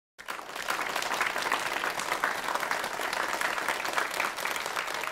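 Audience applauding. The clapping cuts in abruptly just after the start.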